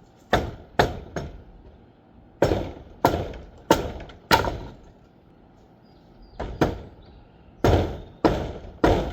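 About a dozen heavy hammer blows in three quick bursts, each a sharp crack with a short ringing tail, struck against a structure being knocked down in demolition.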